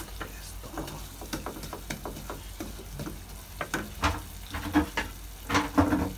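A wooden spatula stirs and scrapes fried onion, garlic and ginger with freshly added tomato paste in a saucepan, with the oil sizzling underneath. The scraping strokes come thicker and louder in the last two seconds.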